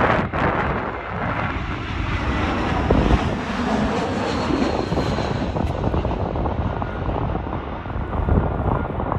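Twin-engine jet airliner on landing approach passing low overhead: a steady rushing engine noise, with a whine that bends in pitch as it goes by.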